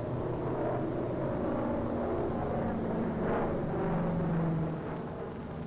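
Single-engine propeller plane's piston engine droning steadily in flight, swelling a little past halfway through.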